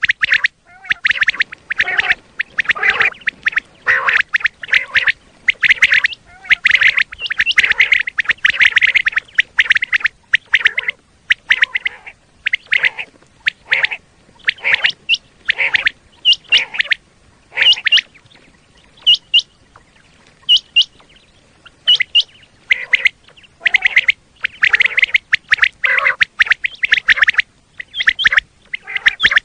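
Common quail calling over and over: bursts of harsh, rapid rasping calls, with a middle stretch of short, sharp, high notes.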